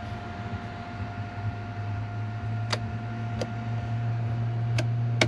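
Four sharp clicks at uneven intervals as the steering-column switch stalks of a 1985 Mazda T3500 are worked, over a steady low electrical hum with a thin constant whine.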